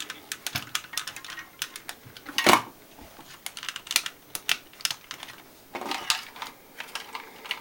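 Irregular small clicks and light knocks of hands handling a toy tank and craft-stick models on a tabletop, with one louder knock about two and a half seconds in and a short scrape near six seconds.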